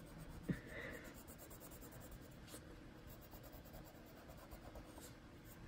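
Faint scratching of a Prismacolor colored pencil on paper, pressed hard to burnish the colour in.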